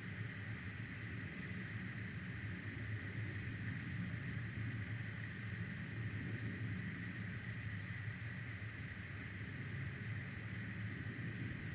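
Steady low rumble with a hiss above it and no distinct calls or knocks: the background noise of an outdoor nest camera's microphone.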